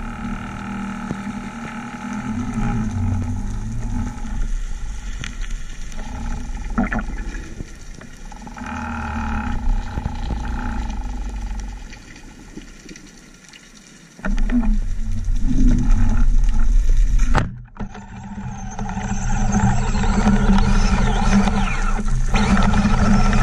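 Underwater sound through an action camera's waterproof housing: water noise with a steady low drone and a few faint clicks, cut off suddenly about 17 seconds in, then a denser rush of water noise.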